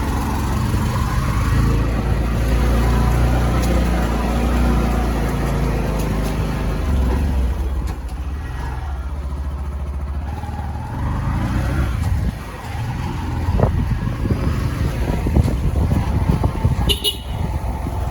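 Riding a motorbike through road traffic: a steady low rumble of engine and wind noise, with other vehicles around. A vehicle horn toots briefly near the end.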